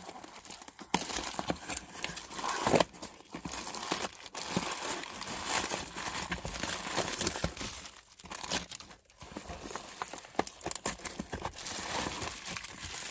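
A taped cardboard parcel being pulled open, then plastic bags and bubble wrap crinkling and rustling as the contents are unwrapped: a steady rustle broken by many sharp crackles.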